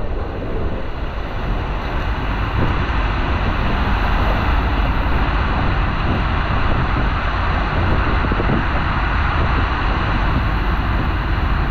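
Steady rushing of water flowing down a water slide, with a low wind rumble on the microphone.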